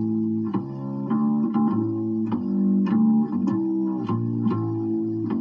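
Background music: a light tune on plucked guitar and bass, with a new note about every half second.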